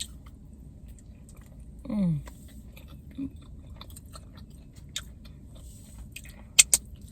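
A person chewing a mouthful of food close to the microphone, with small wet mouth clicks, a short falling hum of the voice about two seconds in, and two sharp clicks near the end.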